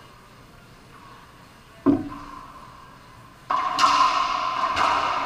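Racquetball shots in an enclosed court: a sharp crack of ball on racquet and wall about two seconds in, then louder, quick hits in the second half, each ringing on in the court's echo.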